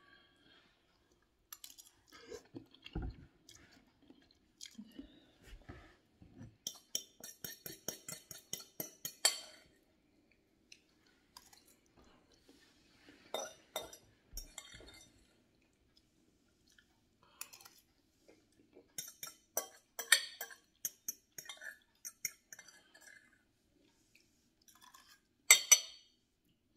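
A man chewing noodles, with a metal fork clinking and scraping against a glass bowl: a quick run of clinks from about seven to nine and a half seconds in, more scattered through the rest, and the loudest clinks near the end.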